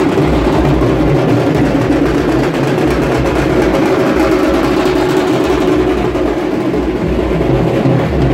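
A group of street drummers pounding large shoulder-slung drums with sticks, a loud, dense, continuous beat with heavy low thuds.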